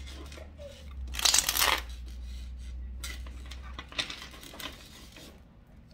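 A deck of oracle message cards being shuffled by hand: a loud rush of cards riffling together about a second in, then softer rustling and a couple of light taps near the end.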